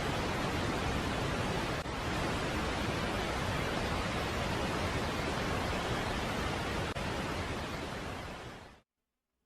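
Steady white-noise hiss, more compressed and easy on the ears: the sonified 'sound' of Pluto's moon Hydra from a solar-system sounds compilation. It fades out about eight and a half seconds in and gives way to silence.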